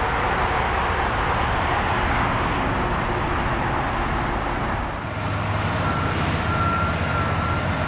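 Steady motor-vehicle noise: a low engine hum under a broad rush like road traffic, with a faint, thin high tone in the last couple of seconds.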